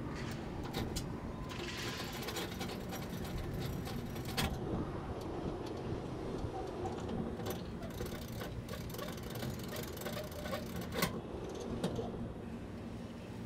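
A diesel semi-truck engine idling steadily with a low hum. A few sharp clicks stand out over it, the loudest about eleven seconds in.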